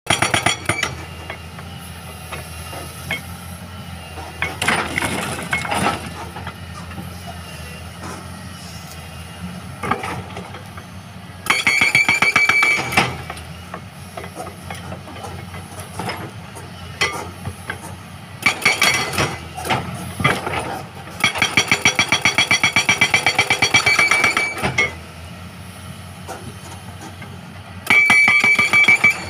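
A hydraulic breaker on a CAT excavator hammering rock in several bursts of rapid, even blows with a high metallic ring. Between bursts the excavator's diesel engine runs steadily.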